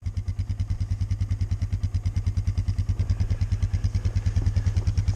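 A small engine idling with a steady, even chug of about nine beats a second.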